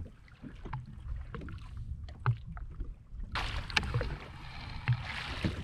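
Water slapping against the hull of a drifting personal watercraft, with scattered light knocks; about three seconds in a rushing hiss sets in and runs on.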